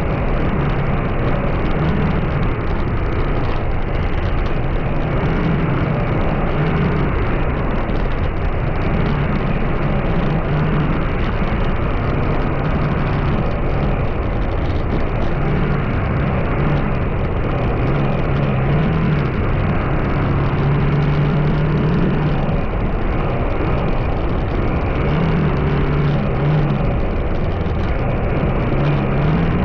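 Steady engine and road noise from a moving vehicle, with the engine's low hum wavering up and down as the speed changes.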